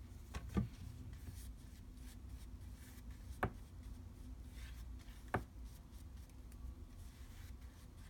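Faint rubbing and scratching of hands working paper on a journal's spine, with three light clicks, over a steady low hum.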